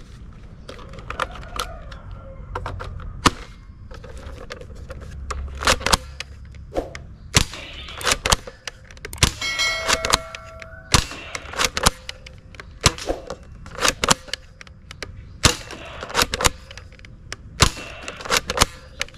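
Plastic toy sniper rifle being handled: a long irregular run of sharp clicks and clacks from its moving parts, with a brief electronic tone about halfway through.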